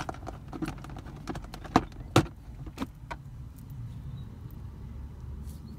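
Metal pipe pieces and flange fittings clicking and knocking together as they are handled and fitted, with two sharper knocks about two seconds in. A low steady rumble runs underneath.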